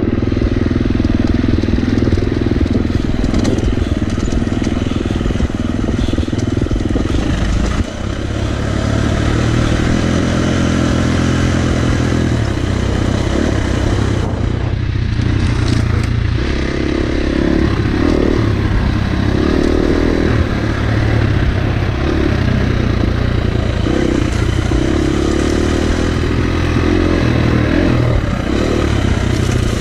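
Dirt bike engine running as the bike is ridden along a trail, its pitch rising and falling with the throttle and briefly dropping about eight seconds in.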